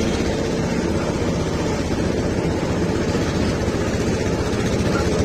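Small 5.5 hp engine of a single-axle tractor running steadily as the tractor drives along a dirt road, with an even, unbroken drone.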